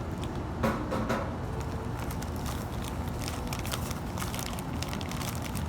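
Plastic zip-top bag crinkling, with scattered small clicks from handling, over a steady low rumble.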